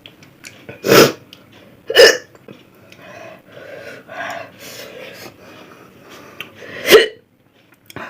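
A person hiccuping loudly three times: one about a second in, another a second later, and a third near the end, with fainter sounds between.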